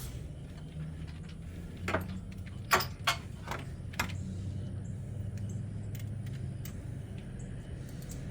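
A handful of short metallic clinks and taps, five or six in about two seconds, from spark plugs and tools being handled while new plugs go into a V8. A steady low hum runs underneath.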